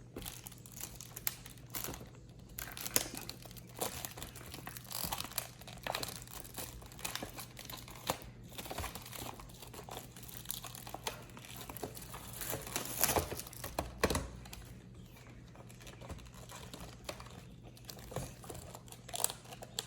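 Toy packaging being crinkled and torn open by hand: irregular rustling and crackling, with a few louder rustles.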